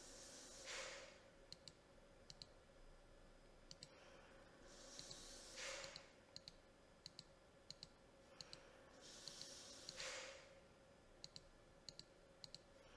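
Faint mouse clicks, each a quick press-and-release pair, as letters are picked one at a time on the Windows on-screen keyboard. Three slow breaths come in between, about four seconds apart.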